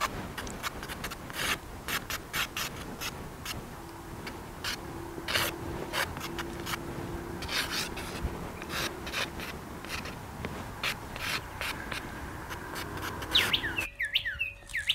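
Stick of homemade charcoal scratching and rubbing across paper in quick, irregular strokes as a sketch is drawn. Near the end a bird gives a few short, falling chirps.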